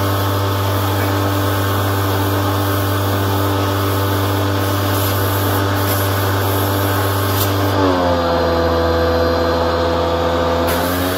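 Pressure washer running, its motor and pump humming steadily under the hiss of the water jet. About eight seconds in the jet's hiss stops and the motor's tone drops lower, then the spray and the higher tone come back near the end.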